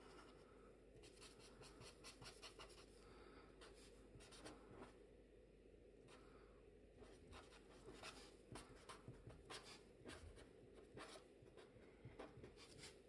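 Faint scratching and tapping of a felt-tip pen on paper in many short strokes, first shading an area with quick back-and-forth strokes, then writing letters.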